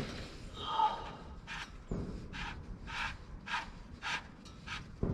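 A man breathing heavily and quickly, a short breath about every half second.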